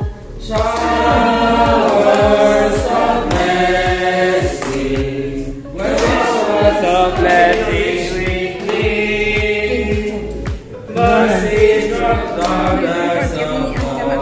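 A song with voices singing together over a steady drum beat.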